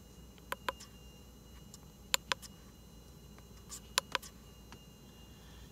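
Button clicks on a handheld MaxiScan MS300 OBD-II scan tool as it is stepped through its code-reading menus: about seven short sharp clicks in three quick groups, mostly press-and-release pairs.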